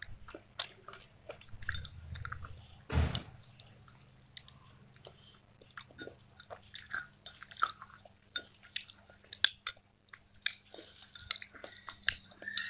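Close-up chewing and crunching of slate pencil, with many small sharp crunches and a louder bite about three seconds in.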